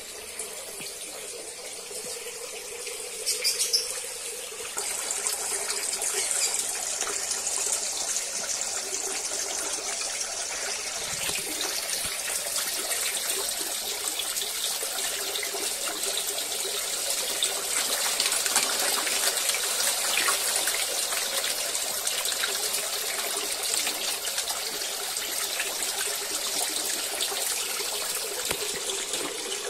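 Thin streams of water pouring into a koi pond, a steady splashing that grows louder about five seconds in.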